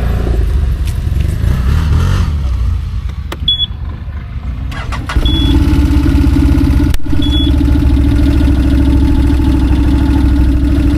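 Quad bike (ATV) engines idling together, with three short high beeps; about five seconds in, a nearby quad's engine comes in loud and runs steadily at idle.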